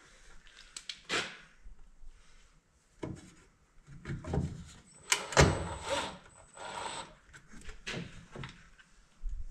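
Irregular clicks, knocks and rattles of headlight parts being handled and fitted, with a louder clatter a little past halfway.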